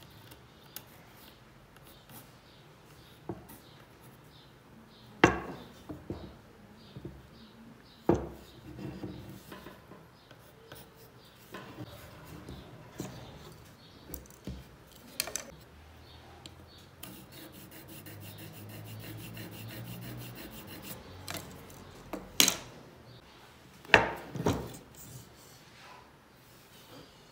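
Wood and hand tools handled on a wooden table: several sharp knocks as pieces of wood and a try square are set down, with soft rubbing and scratching between, as of a pencil marking wood. A low hum runs for a few seconds past the middle.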